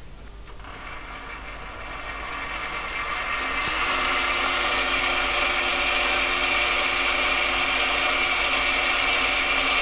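AMA 714B mini lathe's 550-watt motor and gear train spinning up the chuck, getting louder over the first few seconds, then running steadily with a whine made of many steady tones.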